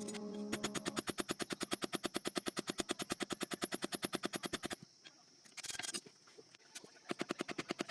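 Rapid, very even metal hammering on a sickle blade at about nine blows a second. It stops about five seconds in, a short scraping burst comes near six seconds, and the blows start again near the end.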